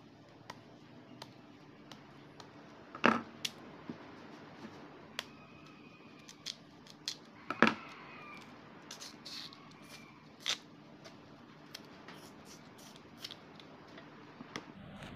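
Cassava root being peeled on a plastic cutting board: a kitchen knife scoring the thick skin and the skin being pried and pulled off by hand, giving scattered small clicks and snaps with two sharp knocks, about three seconds in and near the middle.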